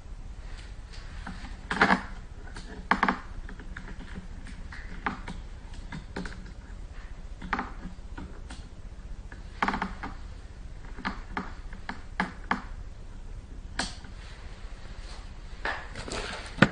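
Irregular clicks and light knocks of test gear being handled, as oscilloscope probe clips and leads are hooked onto a circuit board, over a low steady hum.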